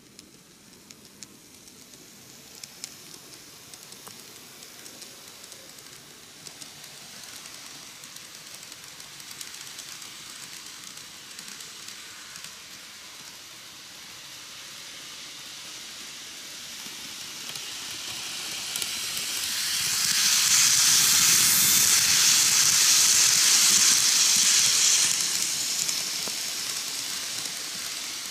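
N-gauge model train (KATO 185 series, seven cars) running on model track: a steady hiss of the motor and small wheels on the rails with light clicks, growing louder to its loudest about two-thirds of the way through, then easing off.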